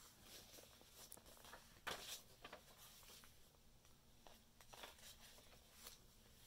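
Faint rustles and light taps of paper pages being turned and handled in a handmade journal, the loudest about two seconds in.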